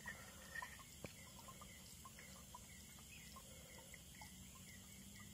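Near silence: faint outdoor ambience with scattered small chirps and one faint click about a second in.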